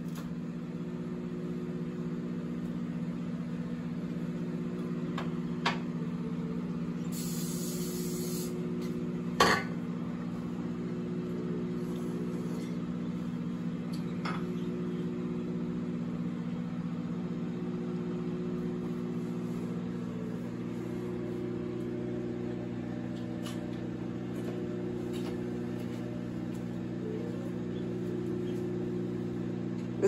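Sunbeam countertop microwave oven running with a steady hum, with a sharp click about nine and a half seconds in and a fainter click a few seconds earlier.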